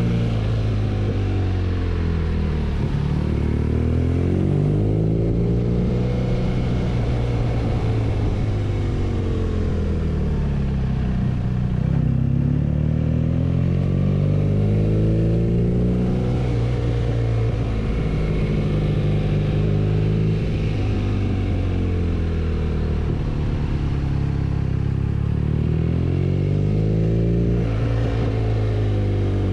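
BMW R nineT's 1170 cc boxer twin engine under way on a ride. The engine note rises and falls repeatedly as the bike accelerates and eases off through the bends.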